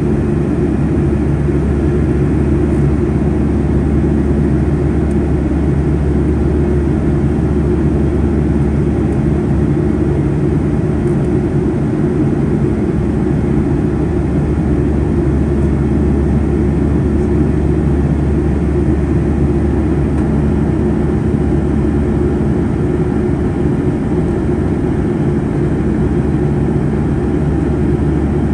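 Steady drone of a Boeing 757-200's jet engines and rushing airflow heard from inside the passenger cabin in flight, low and even throughout, with a faint steady hum.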